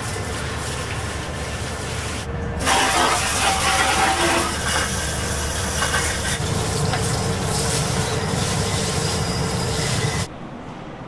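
Water spraying from a hose nozzle into the stainless-steel vats of commercial deep fryers as they are rinsed out. The steady spray breaks off briefly about two seconds in, comes back louder, and cuts off suddenly near the end.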